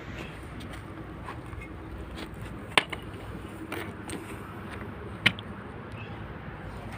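Steady background noise broken by a few sharp knocks, the loudest about three seconds in and again about five seconds in.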